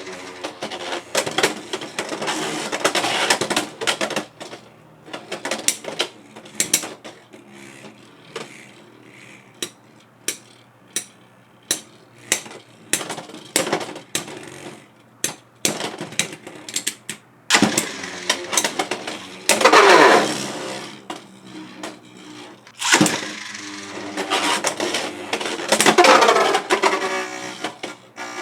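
Beyblade X spinning tops (Silver Wolf 3-80 Free Ball against Whale Wave 5-80 Elevate) launched with a ripcord launcher into a plastic stadium. A loud whir comes at the start, then many sharp clicks and knocks as the tops spin and collide. Two more loud whirring launches come about two-thirds through and near the end.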